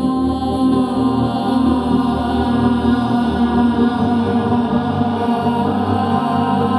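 Background music: a slow ambient track with a sustained, chant-like vocal drone.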